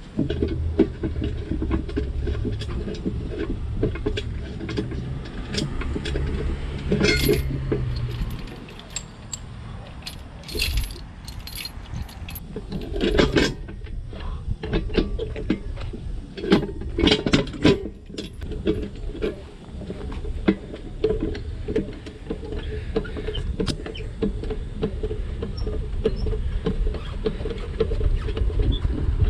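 Metal parts clinking and jangling in several short clusters, handled during engine-removal work on a truck, over a steady low rumble.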